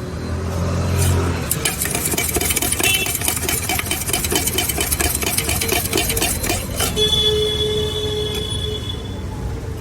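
Jhal muri (puffed rice with masala) being mixed in a metal container: a rapid, even clatter of metal for about five seconds. A steady held tone follows for about two seconds, over street traffic.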